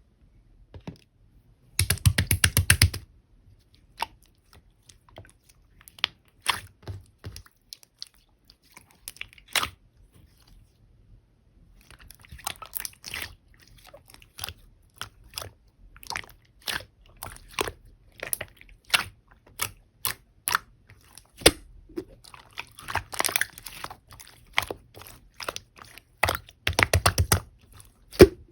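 Pink and sky-blue mixed clear slime being squished and worked by hand, giving scattered sticky clicks and pops. There are two short runs of rapid crackling, one about two seconds in and one near the end.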